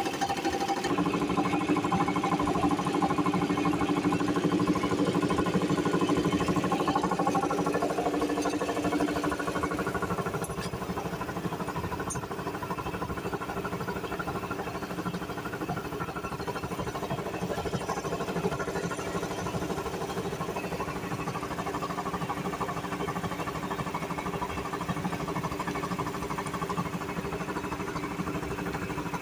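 Air compressor running steadily, its motor and pump holding an even pitch. It is a little louder for the first third, then settles slightly quieter.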